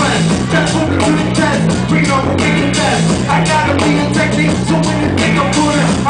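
Loud music played by a DJ through the club's PA, with a repeating bass line.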